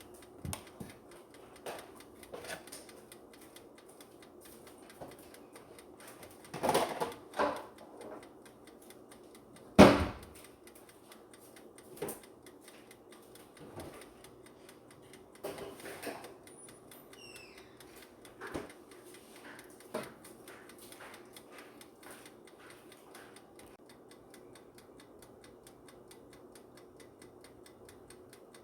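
Scattered knocks and clatters of kitchen things being handled and put away, the loudest about ten seconds in, with a few lighter clicks afterwards over a faint steady hum.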